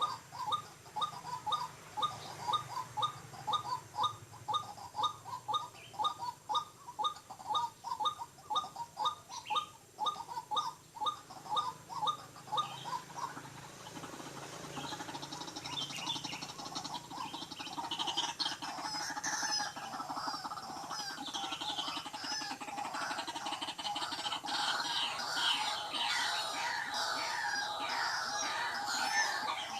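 White-breasted waterhen calls: a steady run of repeated call notes, about two a second. About halfway through it gives way to a denser, more varied jumble of louder calls and croaks.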